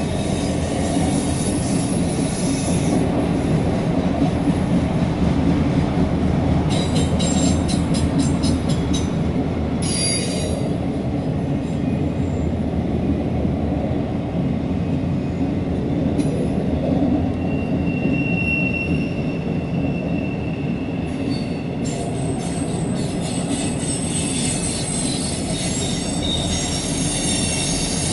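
CSX freight train of empty autoracks rolling steadily past: a continuous rumble of steel wheels on rail with light rattling, and a faint thin wheel squeal about two-thirds of the way through.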